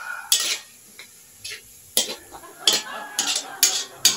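Metal spatula scraping and knocking against a metal pan while stirring ground pork that is being sautéed. About seven sharp, irregular scrapes come in quick succession.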